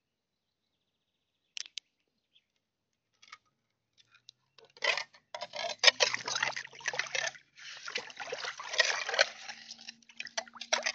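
Water sloshing and splashing close to the microphone, starting about five seconds in after near silence broken by a few faint clicks.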